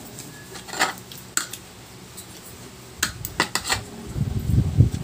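Metal spoon and fork clinking against a plate: two clinks in the first second and a half, then a quick run of clinks about three seconds in. Low thumping follows near the end and is the loudest part.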